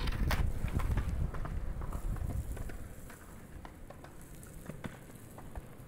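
Wind rumbling on the microphone, with scattered light taps and ticks; the rumble eases about three seconds in.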